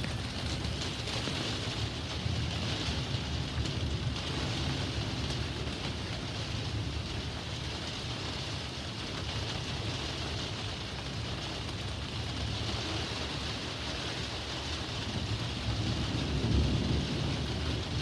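Heavy thunderstorm rain hissing steadily, with thunder rumbling underneath that swells near the end.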